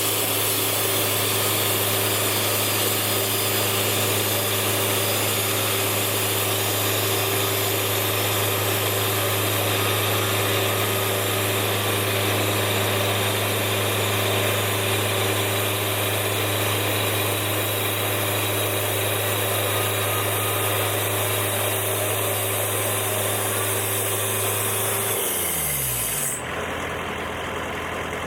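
Sawmill engine running at speed while the saw blade cuts through a maple log, a steady hum under a high hiss. Near the end the engine slows and settles to idle, and the cutting hiss stops.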